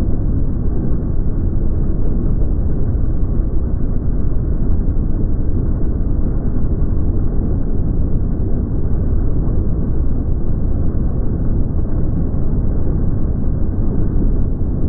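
Hustler FasTrak zero-turn mower running steadily, its engine and deck blades cutting through tall grass. The sound is muffled, with no high end.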